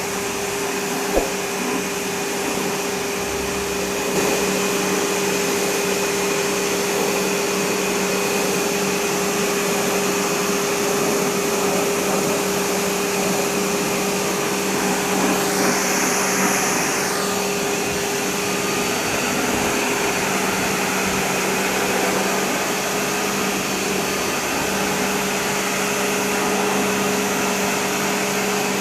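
Steady machine noise: a motor running with a constant hum and a rushing, airy hiss. A single sharp click about a second in.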